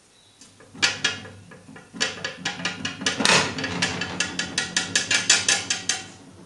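Warped 10 mm stainless steel plate rocking on a steel bench as its raised corner is pressed down and let go, clanking metal on metal: one knock about a second in, then a fast run of knocks, about five a second, that stops near the end. The rocking comes from the plate's distortion, bent by internal stresses released when it was cut.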